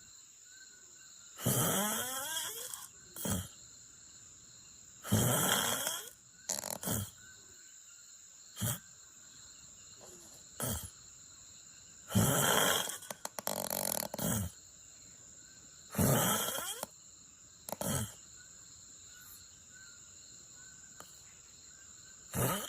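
A person snoring in sleep: four loud, rasping snores spaced a few seconds apart, with shorter, fainter breathing sounds between them. A faint steady high-pitched tone runs underneath.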